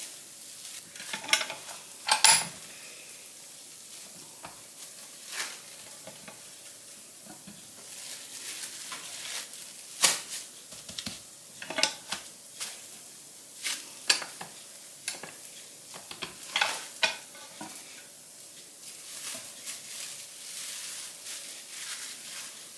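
Arepas sizzling steadily in a hot frying pan, broken by the crinkling of plastic wrap and sharp clacks as a metal tortilla press is closed and opened on a ball of dough.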